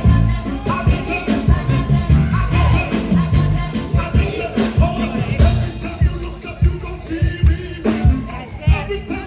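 Upbeat gospel-style music with singing over a steady drum beat.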